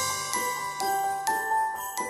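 Background music: bright, bell-like mallet notes struck about two a second over a low held bass.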